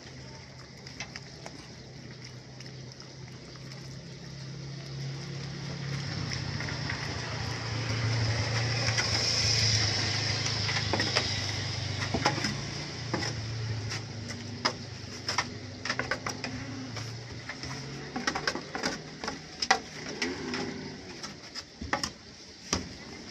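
Etawa goat kids munching banana from a hand, with many short irregular wet clicks and smacks, denser in the second half. Under them runs a steady low hum that swells for a few seconds in the middle, then fades out.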